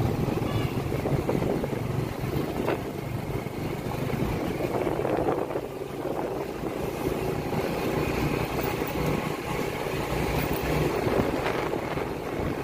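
Motorcycle engine running steadily while riding along, with road noise.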